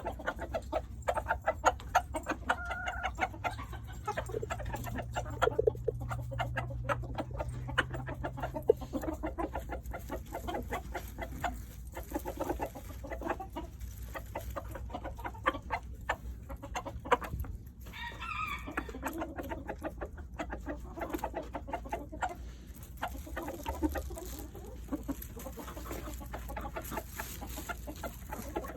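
Rooster clucking rapidly and repeatedly over treats, the food call a rooster makes to draw hens to food it has found. About 18 s in there is one higher, wavering call.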